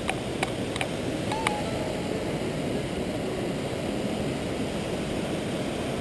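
Waterfall and stream water rushing in the ravine below, a steady low rush, with a few sharp clicks in the first second and a half.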